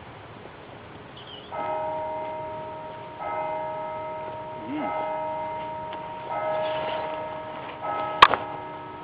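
A single church bell tolling, five strokes about a second and a half apart, each ringing on and fading. Near the end a sharp thud as a rucksack is dropped onto the ground.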